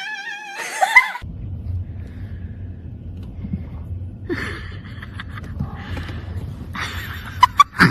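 A cat's meow trails off at the start, then a steady low rumble runs on, with a few sharp clicks near the end.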